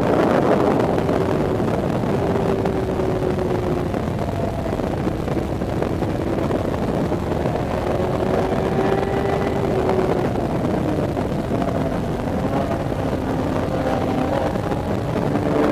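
Sport motorcycle engine running hard on a race track, heard from an onboard camera over a rush of wind noise. Its pitch rises and falls slowly as the rider accelerates and eases off through the corners, dropping lower near the end before climbing again.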